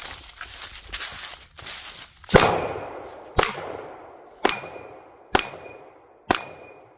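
Five pistol shots, roughly one a second, the first the loudest. Steel targets ring after the later shots, the sign of hits on the steel plates.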